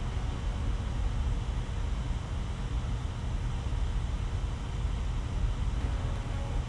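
Steady low-pitched rumble with a fainter hiss above it, a constant background noise with no distinct knocks or clicks.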